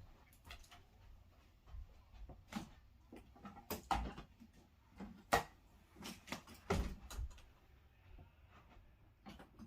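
Irregular clicks, taps and knocks of TV parts being handled during the disassembly of an LED LCD television, with the loudest knocks a little past the middle.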